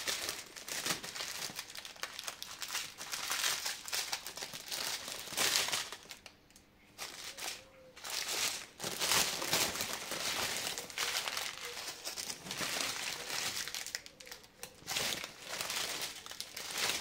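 A clear plastic bag packed with small plastic sachets of diamond-painting drills crinkling and rustling as hands rummage through it, in irregular bursts with short lulls about six seconds in and near fourteen seconds.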